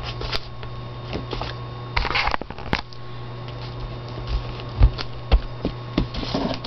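Fingers pressing and smoothing a glued paper die-cut onto a journal page: soft paper rustles and a few light taps and knocks, the sharpest just before and after the five-second mark, over a steady low hum.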